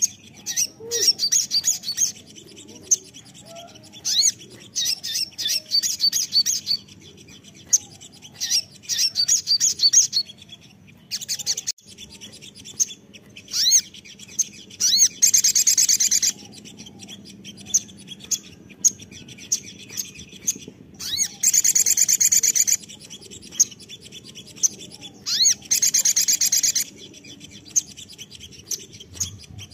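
Male olive-backed sunbird (sogon) singing: phrases of rapid, high-pitched chips and trills a second or two long, repeated with short pauses between. The densest trills come about halfway through and again about two-thirds through.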